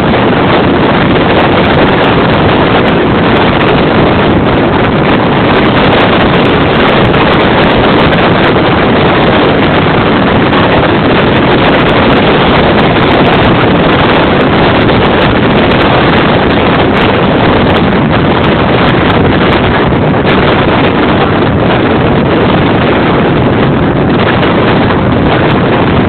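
Strong wind blowing hard across the microphone: loud, steady wind noise that never lets up.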